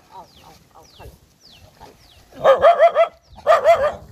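A dog whining and yelping in two short loud bouts in the second half, the pitch wavering up and down quickly; before that, only faint high falling chirps.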